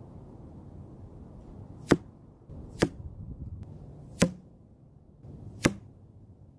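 Arrows striking a Block foam archery target. There are four sharp hits: one just under two seconds in, one about a second later, one past the four-second mark and one near the end.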